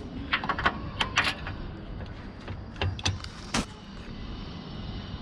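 Irregular clicks and knocks from the trailer's overrun-brake coupling being handled and checked for play.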